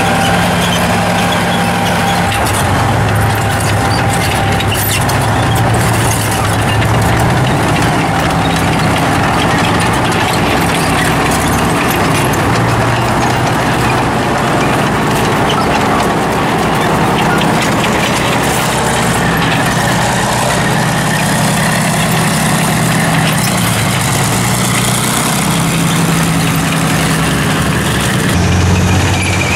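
T-34 tank's V12 diesel engine running as the tank drives, its note shifting up and down, with the clatter of its steel tracks.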